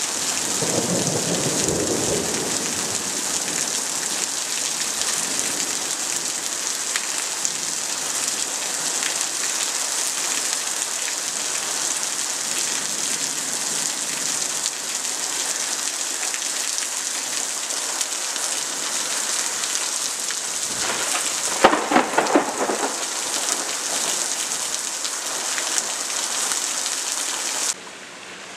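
Heavy rain pouring steadily in a thunderstorm, with a low rumble of thunder about a second in and a louder, crackling peal of thunder a little past twenty seconds in. Near the end the rain noise drops away abruptly.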